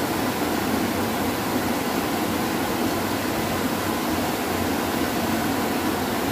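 Steady rush of river water spilling over a small weir and running fast, an even hiss-like roar.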